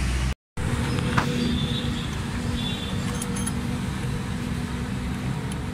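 Steady low mechanical rumble with a faint hum, like a motor vehicle running, and one sharp click about a second in. The sound drops out completely for a split second near the start.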